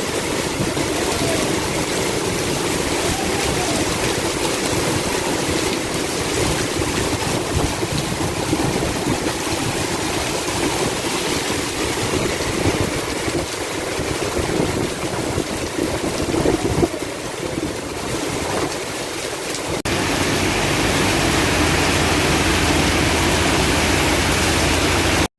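Heavy downpour: a steady rush of rain and running water, becoming a more even hiss about twenty seconds in.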